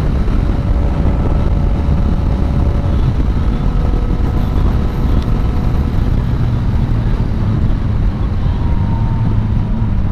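Yamaha MT-09 Tracer 900's three-cylinder engine through an Akrapovic exhaust, running under way at fairly steady revs with wind noise on the microphone. The revs ease down slightly near the end.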